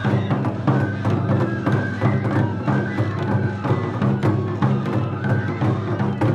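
Traditional Japanese festival music: drums and clacking percussion struck a few times a second under short bamboo-flute phrases, over a steady low hum.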